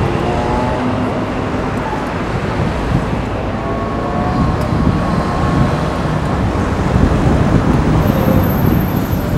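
Steady road traffic noise from cars and buses, a continuous low rumble with faint engine tones in it.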